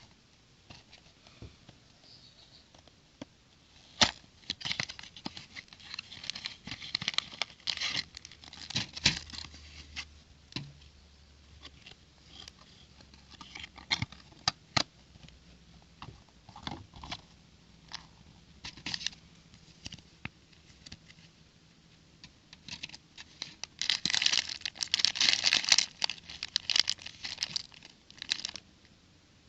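Plastic packaging of a building-brick set being torn open and crinkled, with scattered sharp clicks; the crinkling is densest near the end.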